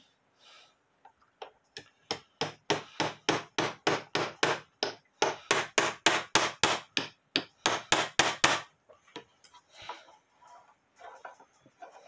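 Small ball-peen hammer tapping a small nail into a wooden clock case, with quick light blows about three a second that begin about two seconds in and stop near nine seconds, followed by faint handling noises.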